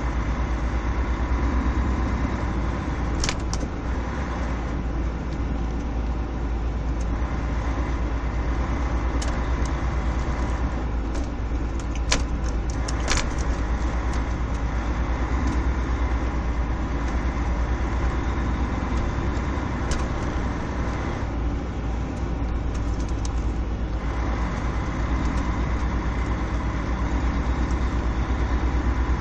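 Steady low rumble of a car running slowly, heard inside its cabin, with a few sharp clicks.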